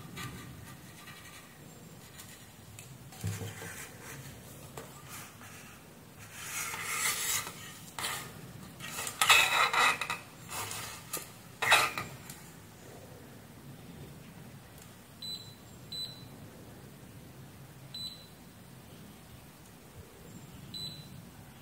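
Test probes and fingers working over a router circuit board: rubbing, scraping and clicks, busiest in the middle. Near the end come four short high beeps, typical of a digital multimeter's test buzzer as the probes touch the regulator IC's pins.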